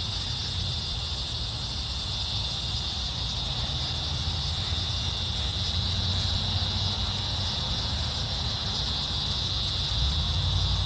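Steady, unbroken high-pitched chorus of insects buzzing in the grass and trees, over a low rumble that grows a little louder near the end.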